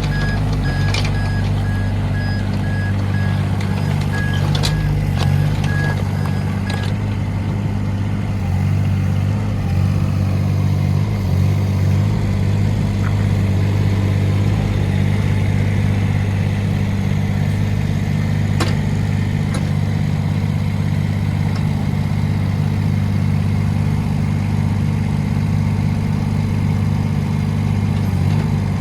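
Wacker Neuson mini excavator's three-cylinder Yanmar diesel running steadily. A rapid beeping alarm sounds over it for the first several seconds and stops about seven seconds in. A few sharp knocks are heard.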